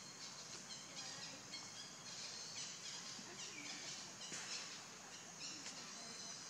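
Outdoor ambience: a faint steady hiss with scattered short, high bird chirps throughout.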